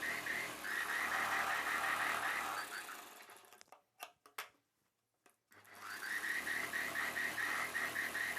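Electric sewing machine stitching with a steady rhythmic chatter over its motor hum. It stops about three seconds in, a couple of light clicks follow, and it starts stitching again near six seconds.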